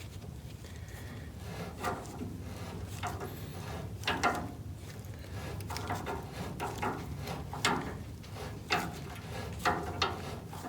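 Irregular knocks and scrapes of hand work on the front steering as a tie rod is adjusted to bring the wheel's toe in, about eight sharp clacks spread unevenly over a low steady hum.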